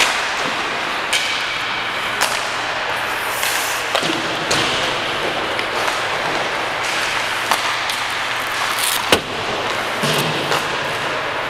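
Hockey rink: a steady wash of skating and arena noise, broken every second or two by sharp knocks, slams and pings of pucks hitting sticks and boards. The loudest knock comes about nine seconds in.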